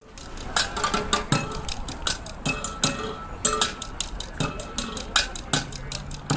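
Percussion played in a fast, busy rhythm: quick sharp metallic strikes with a ringing tone, over deeper drum hits about every half to three-quarters of a second.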